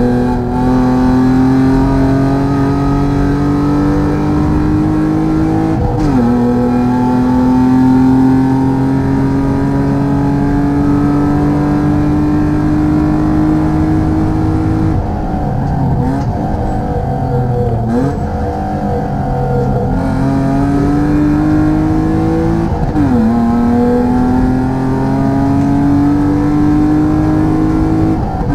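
BMW E36 323i's 2.5-litre straight-six race engine pulling hard, its note climbing slowly and falling sharply at an upshift about six seconds in. Near the middle the note breaks up and dips twice as the car lifts off and shifts down for a corner. It then climbs again through another upshift shortly before the end.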